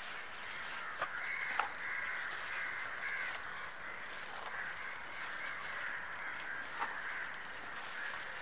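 Crows cawing repeatedly in the background, their harsh calls overlapping into a near-continuous chorus, with a few faint clicks about one, one and a half, and seven seconds in.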